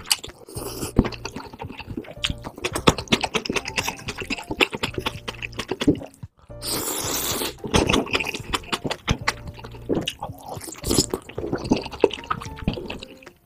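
Wet slurping and chewing of spicy instant noodles, with many sharp mouth clicks and a long, loud slurp about seven seconds in, over steady background music.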